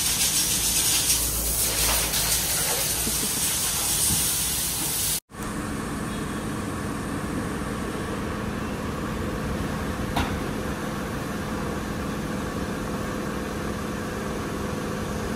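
Car wash equipment: a loud, steady hiss for about five seconds. After a sudden cut it gives way to a quieter, steady hum with a few held tones and one click about ten seconds in.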